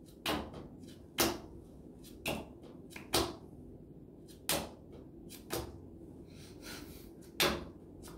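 Playing cards flipped face up and slapped down onto a tabletop one at a time in a fast card game, about seven sharp slaps spaced unevenly.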